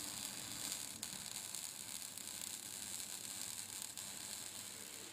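Electric welding arc sizzling and crackling steadily.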